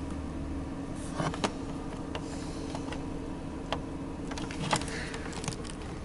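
Ram ProMaster van's engine idling with a steady low hum, with a scattering of small clicks and knocks as a charger cable is plugged in.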